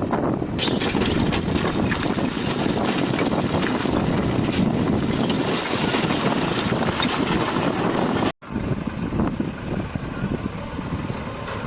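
Diesel engine of a backhoe loader running steadily, with scattered clicks and knocks over it. The sound cuts out abruptly for an instant a little over eight seconds in, then carries on slightly quieter.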